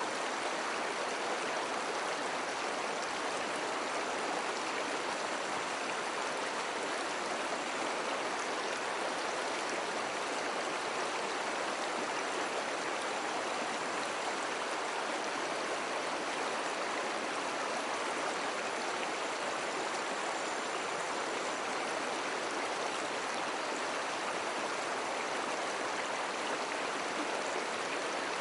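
Mountain stream flowing, a steady rush of running water that holds even throughout.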